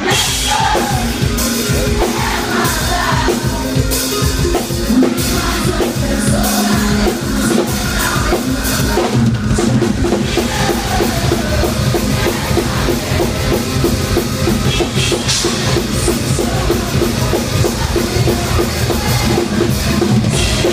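Live metalcore band playing loud, with a busy drum kit driving the song on kick drum and snare.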